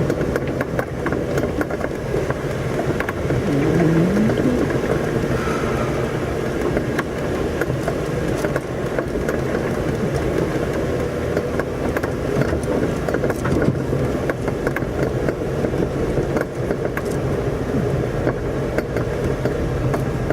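Jeep Wrangler engine running steadily at low speed as it crawls up a bumpy dirt trail, with many small knocks and rattles from the body and suspension over the rough ground.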